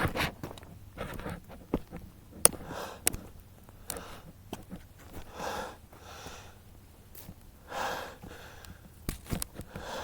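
A person breathing hard while hurrying uphill on foot, a breath about every second and a half, with scattered sharp clicks of footsteps.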